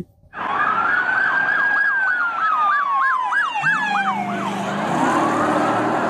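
Police car siren sounding: a slow wail that rises and then falls, overlapped about a third of the way in by a fast yelp of about four sweeps a second. A low steady tone joins about halfway, and another slow rise begins near the end.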